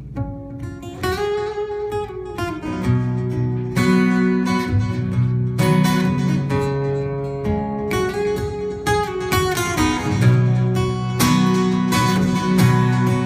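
Instrumental music: acoustic guitar strumming chords, with a held melody line whose notes slide up and down.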